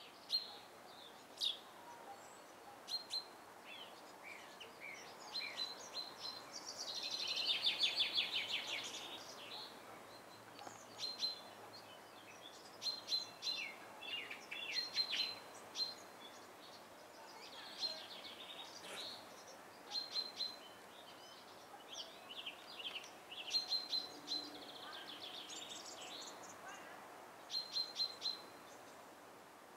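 Small birds chirping and singing: short, high chirps repeated throughout, with a louder rapid trill about seven seconds in.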